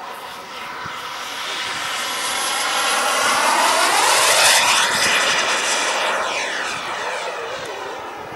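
Radio-controlled scale model F-16 jet flying a pass: its jet engine whine grows louder, peaks about four seconds in as the model goes by, then fades with a falling pitch.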